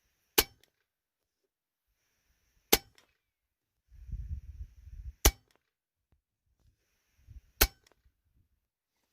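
Four shots from a .177 Hatsan Nova air rifle firing 18-grain Griffin dish-base slugs, each a sharp crack about two and a half seconds apart, with a faint tick a split second after each. A low rumble of handling noise comes between the second and third shots.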